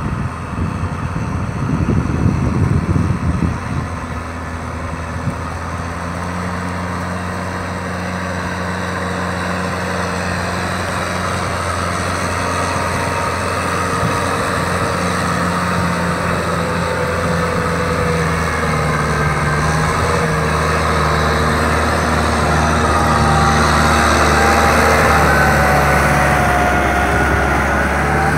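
Kubota M6040 SU tractor's four-cylinder diesel engine running steadily under load while ploughing a paddy, growing gradually louder. A gusty rumble fills the first few seconds, and higher tones rise in pitch near the end.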